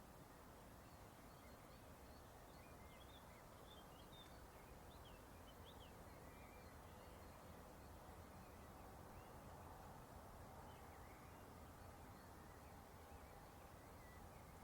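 Faint ambience of small birds chirping here and there, many short high calls over a steady low background rumble.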